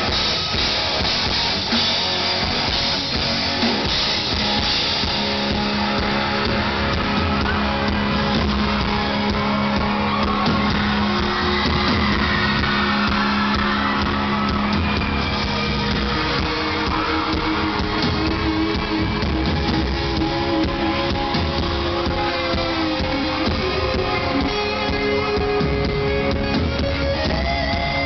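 A live rock band playing, with electric guitar and drum kit to the fore over sustained held notes, heard from within the audience.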